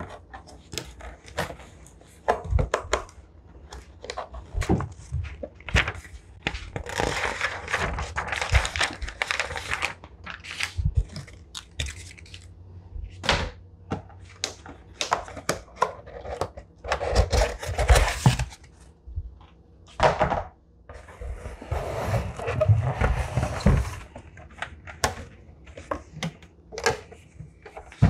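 Cardboard packaging being handled: box flaps opened and cardboard inserts and an egg incubator lifted out, with many light knocks and thunks and several longer stretches of cardboard scraping and rustling.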